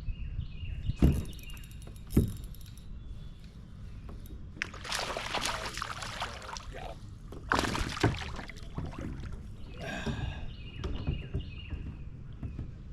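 Water splashing and sloshing against a kayak, with two sharp knocks on the hull about a second apart, over a steady low rumble; it fits a hooked bass being worked alongside the kayak.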